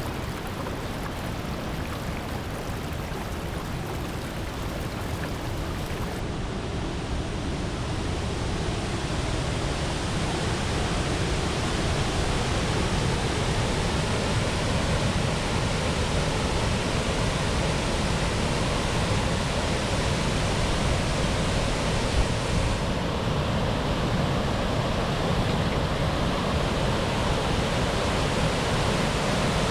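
Steady rush of a waterfall, a continuous roar of falling water that grows slightly louder over the first ten seconds, then holds even.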